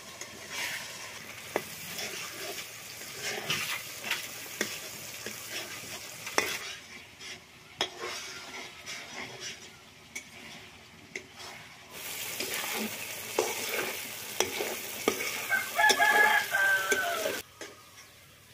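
Onions and masala paste sizzling as they fry in a large aluminium kadai, with a flat metal spatula stirring and scraping against the pan. A rooster crows near the end.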